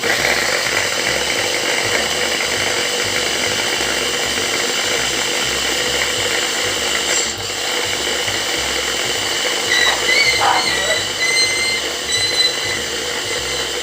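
Electric kitchen blender running steadily at full speed, blending chopped pineapple with a little water for juice. It starts suddenly.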